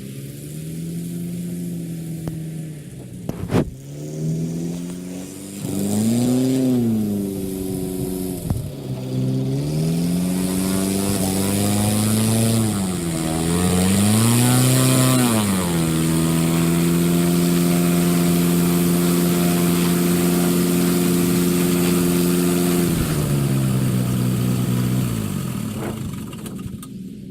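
An engine revving up and down a couple of times, then holding a steady high speed for several seconds before its pitch falls and the sound fades out near the end.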